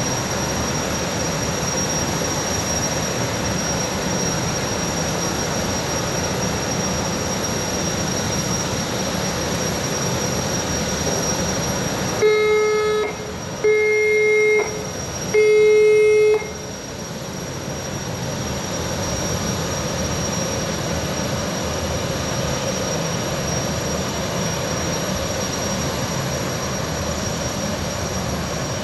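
Boeing 929 jetfoil's gas turbines running with a steady high whine as the vessel manoeuvres slowly away from the pier. Partway through, the ship's horn gives three short blasts, the signal for going astern.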